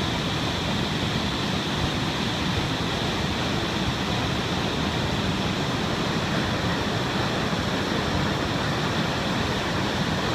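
Waterfall swollen with muddy floodwater, pouring with a steady, unbroken rush.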